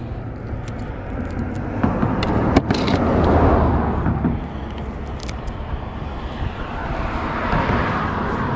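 Road traffic passing: a steady rushing noise with a low rumble that swells and fades twice, as vehicles go by. A few sharp clicks sound over it.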